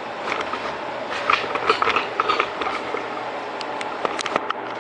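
Clicks and rattles of a camera and its mount being handled as the camera is carried and set up: a flurry of clicks in the first three seconds, then a few sharp clicks near the end, over a steady background noise.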